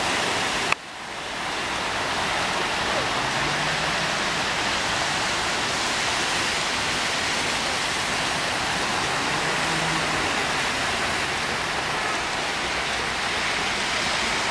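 Steady rush of flowing water, a constant even noise like a waterfall. Under a second in there is a sharp click, after which the sound drops suddenly and swells back over about a second.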